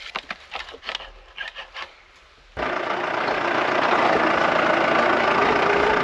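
Wooden pallet gate knocking and clattering as it is handled. About two and a half seconds in, a tractor engine comes in suddenly and runs loud and steady.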